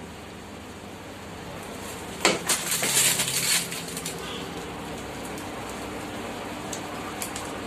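Plastic piping bags rustling and clicking as one is set down and another taken up: a dense burst of crackles about two seconds in, lasting just over a second, over a steady background hum.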